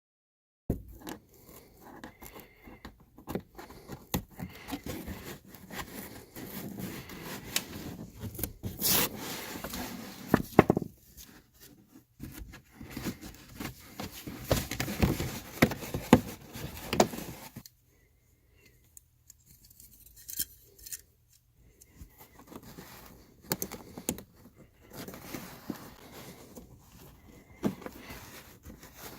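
Hand tools scraping and snipping at a car's fabric trunk liner as a 12 mm hole is cut in it, with scattered sharp clicks and handling noise. A short pause about two-thirds of the way through.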